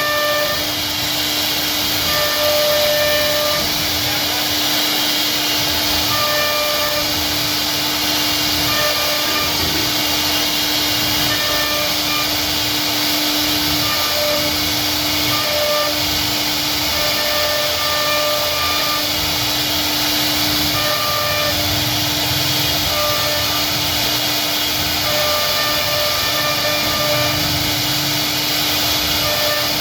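CNC router spindle running while it cuts wood, a loud steady whine and hiss with a tone that keeps cutting in and out as the bit moves through the cut.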